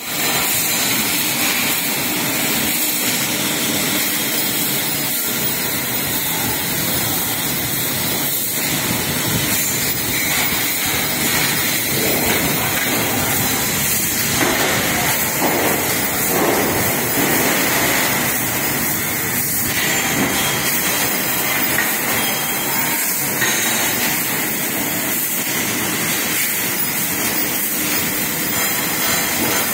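Steady, even machine noise from a CNC press brake running while sheet-steel cupboard panels are bent, with no distinct knocks.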